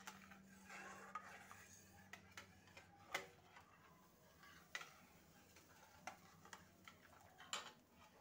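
A metal spoon stirring thickened milk in a metal pan, faint scraping with a few scattered clinks of spoon against pan, the loudest about three seconds in. A steady low hum runs underneath.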